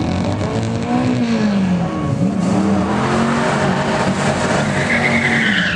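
1989 Camaro IROC-Z's 305 TPI V8 revving up and down during a burnout, the rear tyres spinning over a steady hiss, with a high tyre squeal near the end.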